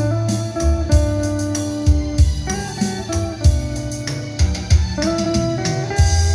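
Instrumental pop music: plucked guitar over bass with a steady drum beat.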